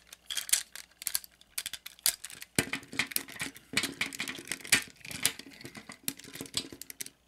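Irregular small clicks, snaps and taps of a G1 Optimus Prime transforming toy's parts being swung and locked into place by hand as it is converted from truck to robot.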